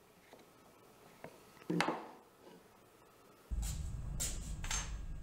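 A single knock of wooden box-joint pieces set down on a router table top, about two seconds in. From about three and a half seconds a steady low hum comes in suddenly, with a few light taps and clicks over it.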